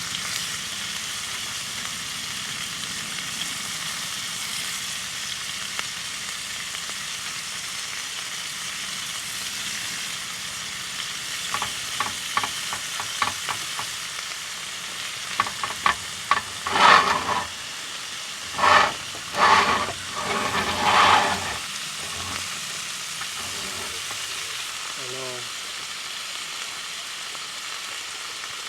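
Food sizzling steadily in a cast iron skillet. Around the middle come a run of quick clicks and then several loud bursts of sizzle over a few seconds.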